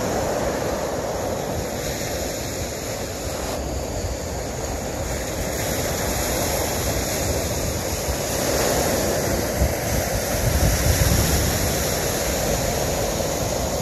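Small waves washing onto a sand-and-pebble beach, a steady rushing, with wind buffeting the microphone in gusts, strongest a little after the middle.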